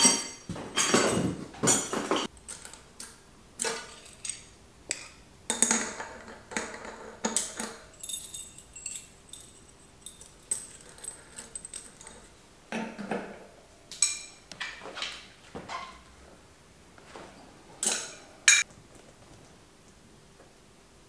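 Loose metal bicycle parts, a rear sprocket and its spacer rings, clinking and clattering as they are rummaged for and slid onto a rear hub. The clinks come irregularly, some with a short metallic ring; the loudest clatter is in the first couple of seconds, and it thins out to a few light clicks.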